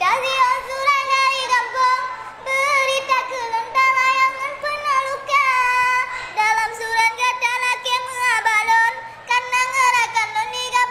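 A high-pitched voice singing a melody in long held notes, with short breaks between phrases.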